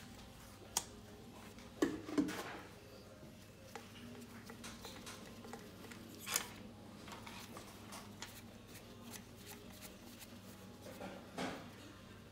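A few light clicks, knocks and rustles from gloved hands handling a compression tester's hose as it is moved from one spark plug hole to the next in a bare aluminium cylinder head, over a faint steady hum.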